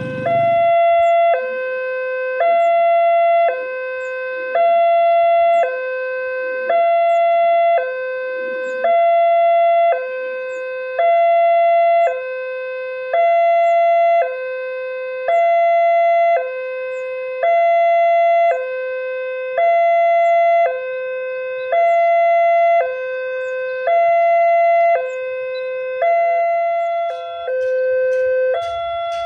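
Indonesian railway level-crossing warning alarm: an electronic two-tone signal alternating a lower and a higher tone, each held about a second, repeating steadily. It signals that a train is approaching or passing and the road is closed.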